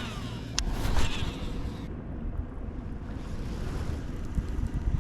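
Wind buffeting the microphone with water lapping, and a single sharp click about half a second in.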